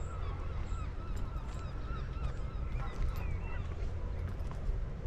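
Birds calling in a quick run of short, wavering calls for the first few seconds, then a few higher chirps, over a steady low rumble.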